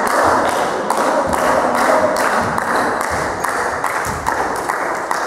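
Spectators clapping in rhythm, about two claps a second, over crowd cheering in a sports hall, dying down near the end.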